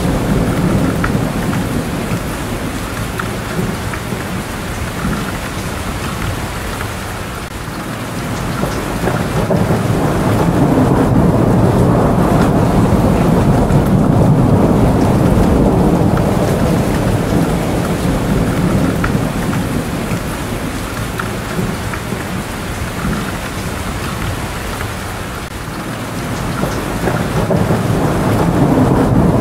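Steady heavy rain with low rolling thunder, the rumble swelling about a third of the way in and again near the end.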